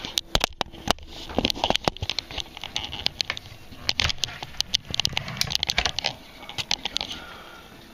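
Irregular clicks, taps and rubbing of handling noise as the air rifle and the handheld camera are moved about, with no steady sound underneath.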